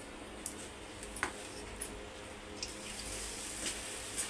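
Hot oil sizzling steadily in a kadhai where bhature are deep-frying, with a few faint clicks.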